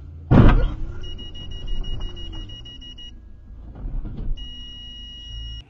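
A sudden loud bang about a third of a second in, the loudest thing here. Then a high-pitched steady electronic tone sounds twice: once for about two seconds, and again for just over a second near the end, over low vehicle rumble.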